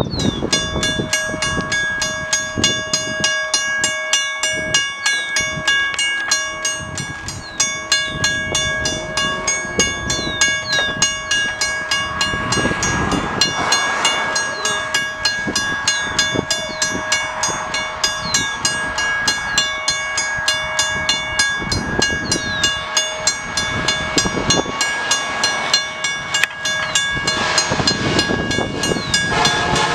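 Approaching diesel freight locomotive sounding its multi-note air horn in repeated long blasts with short breaks. The train's rumble builds underneath as it nears.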